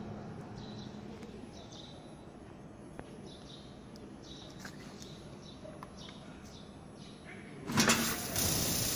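Low steady machine-room background with faint high chirps. About eight seconds in, a sudden loud, steady hiss starts: the oxygen assist gas jetting from the fiber laser's cutting nozzle as the cut on black steel begins.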